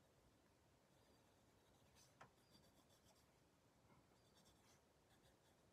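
Faint scratching of a graphite pencil drawing on sketchbook paper, with a soft tick about two seconds in.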